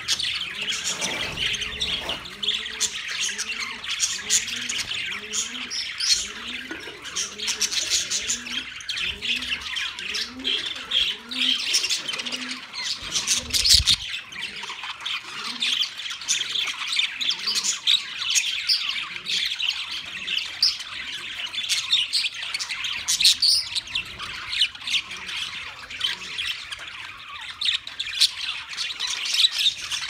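A flock of budgerigars chattering and warbling together without a break. For roughly the first half, a lower sound repeats about twice a second beneath the chatter.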